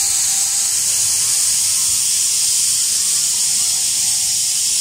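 A loud, steady hiss that starts abruptly.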